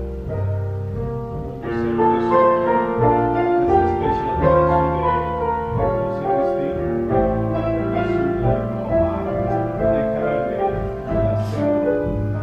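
Piano music over a sustained low bass line, with no singing, in the middle of a slow romantic song.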